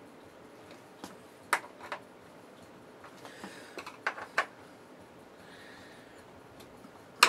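Scattered light clicks and taps of a screwdriver and small metal parts on the stamped steel chassis of a 1968 Shibaden SV-700 video tape recorder during reassembly, with soft handling rustle between them and a louder click near the end.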